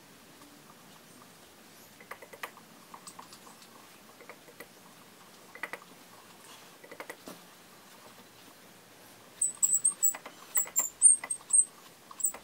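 Light taps of a soft-faced mallet on a milling vise, mixed with clicks from the mill table being wound along, as the vise is nudged square to the table travel. Scattered quiet knocks at first, then a quick run of sharper, louder clicks and taps in the last three seconds.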